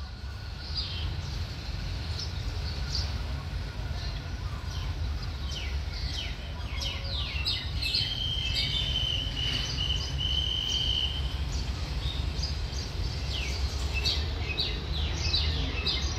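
Small birds chirping over and over in short quick falling notes, with one steady high note held for about three seconds near the middle, over a constant low rumble.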